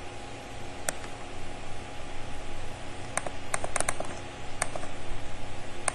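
Computer mouse clicking: one click about a second in, a quick run of five or six clicks just past the middle, and another near the end, over a steady low electrical hum.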